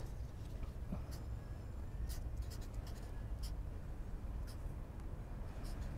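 Marker pen writing on a paper envelope: short, separate scratchy strokes, over a low steady rumble.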